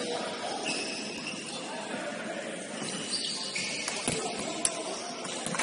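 Basketball being played on an indoor court: short high squeaks of sneakers on the floor and two sharp ball thuds a little past the middle, over a background of players' voices.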